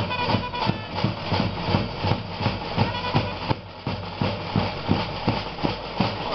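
Band drums playing a fast, steady beat, with a few brief high tones near the start and again about three seconds in.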